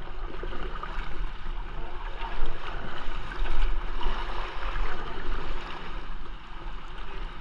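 Whitewater kayak paddling on a flowing river: paddle blades splashing in uneven surges and water rushing against the hull.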